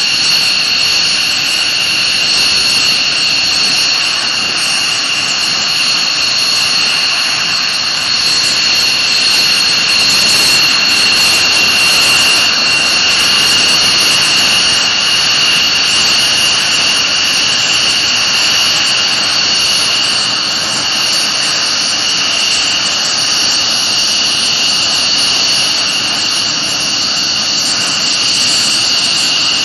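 F-15C Eagle's twin Pratt & Whitney F100 turbofan engines running at taxi power: a loud, steady jet whine with two high-pitched tones over a rushing hiss.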